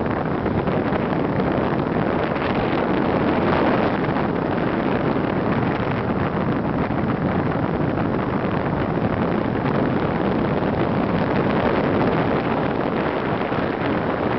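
Steady rush of wind buffeting the microphone of a camera carried on a paraglider in flight.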